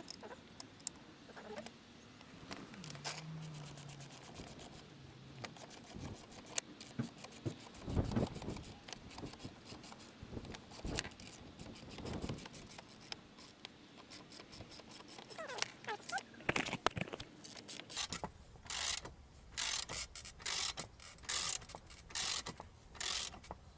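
Ratchet wrench clicking and metal tools knocking and scraping while coil spring compressors are wound on a front strut, compressing the spring. A quick run of clicks comes a few seconds in, and near the end about eight evenly spaced ratchet strokes, roughly one and a half a second.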